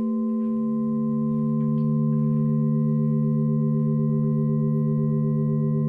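Ambient drone music of several steady, bell-like tones held together, with a lower tone swelling in about half a second in and a slow beating on one of the middle tones.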